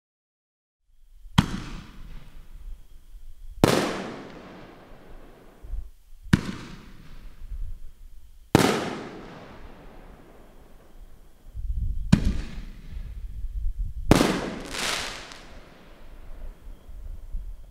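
Black Cat Neon Diablo 5-inch canister shells firing: a run of sharp booms about two to three seconds apart, each trailing off in a long echoing tail, with two coming close together near the end.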